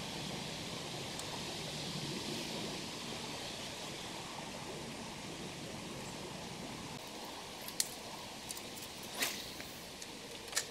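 Steady riverside background hiss of moving water and leaves, slowly fading, with a few short sharp clicks in the last three seconds.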